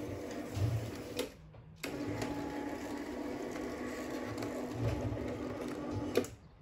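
Tubular motor of an electric roller shutter running as the shutter is driven from its freshly wired switch: a steady hum that stops with a click a little over a second in, starts again half a second later and runs until a click shortly before the end.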